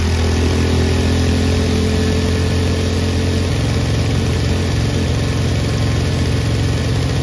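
Ducar 212 single-cylinder OHV four-stroke engine running at a steady speed with its governor removed and a rev-limiting ignition coil fitted; its low note changes slightly about halfway through.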